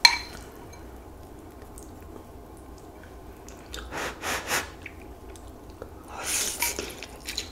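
A person slurping stir-fried instant ramen noodles off chopsticks, twice: once about four seconds in and again near the end.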